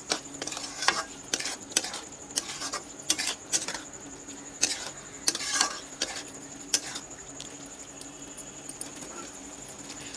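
Flat metal spatula scraping and knocking against an aluminium kadhai as boiled chickpeas are stirred through masala, over a steady sizzle of frying. The strokes come irregularly and thin out after about seven seconds, leaving mostly the sizzle.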